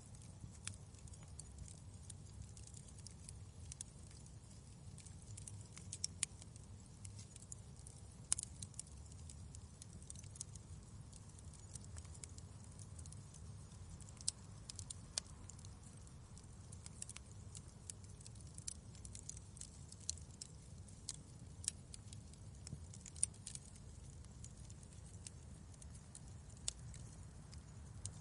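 Wood fire in a fireplace crackling: irregular sharp pops and snaps, a few louder than the rest, over a steady low rumble of the flames.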